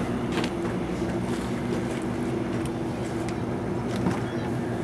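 A steady engine hum with several low tones, like a motor idling, with a few faint clicks over it.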